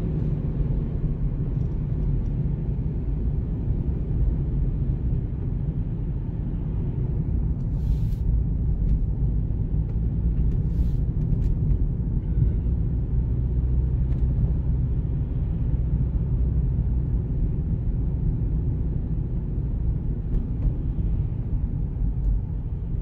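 Steady low rumble of a car's engine and tyres, heard from inside the cabin as it moves slowly in heavy traffic, with a few faint clicks around the middle.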